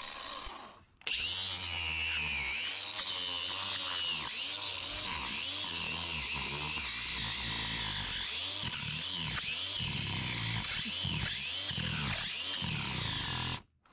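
Ryobi 18-volt brushed cordless angle grinder with a wood shaping wheel, grinding down a jujube tree stump. It starts abruptly about a second in and runs steadily, its pitch repeatedly dipping and recovering as the wheel bites into the hard wood, then cuts off suddenly near the end.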